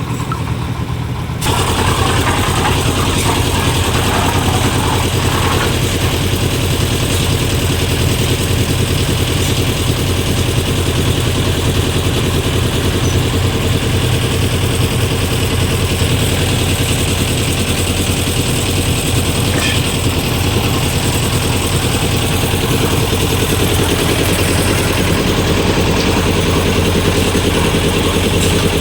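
An engine running steadily, growing louder about a second and a half in and then holding an even note.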